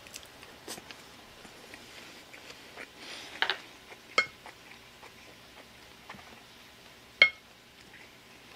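Wooden spoon knocking and scraping against a ceramic plate while scooping fried rice, with soft eating sounds between; a few sharp clicks, the loudest about seven seconds in.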